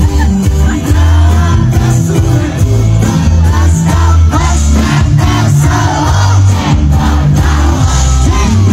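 Live band music heard loud from the crowd: a male singer sings over bass and guitars, with crowd voices shouting along.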